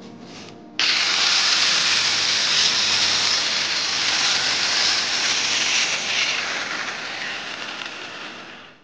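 Power tool cutting a groove into a brick and plaster wall for wiring conduit: a loud, even grinding noise that starts abruptly about a second in and fades away near the end.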